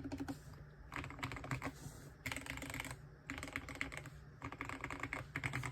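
Typing on a GMMK 2 compact mechanical keyboard fitted with lubed Akko Jelly Black linear switches. The keystrokes come in quick runs of clicks with short pauses between, giving a deep "thocc" sound.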